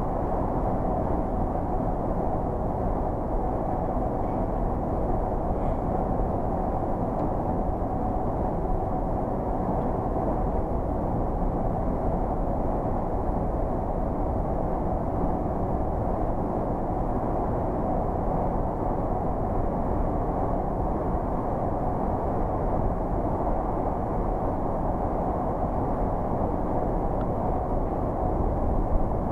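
Steady, muffled engine and tyre noise heard from inside a vehicle's cabin while driving at a constant speed through a long road tunnel.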